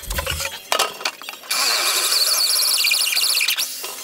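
Corded handheld electric drill running for about two seconds, its motor whine wavering and dropping in pitch as it bores into a plywood speaker panel. A few sharp knocks come before it.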